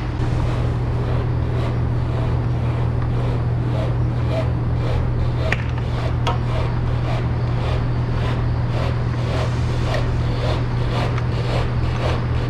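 A steady low machine hum with an even pulsing rhythm of about two beats a second, typical of a dairy barn's milking equipment running. A couple of sharp clicks come about five and six seconds in, from the liner and hose parts being handled.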